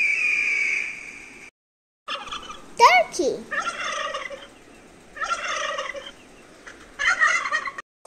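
Domestic turkeys gobbling in three separate bursts of about a second each. Before them, a steady high bird cry, laid in as an eagle's call, cuts off about a second and a half in, followed by a short gap.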